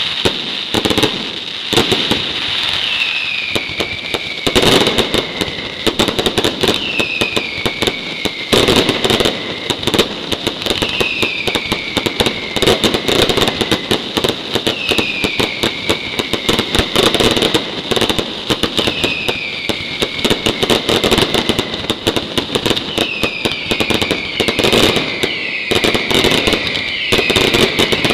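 Mascletà fireworks with aerial shells: a continuous rapid crackle of firecrackers and bursting shells. Over it comes a falling whistle about every two seconds, and several whistles overlap near the end.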